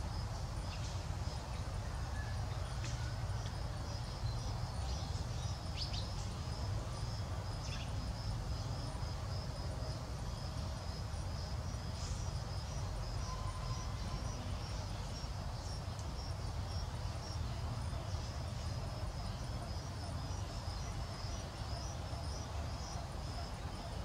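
Insects chirping in an even, high-pitched pulse over a steady low rumble, with a few faint clicks in the first several seconds.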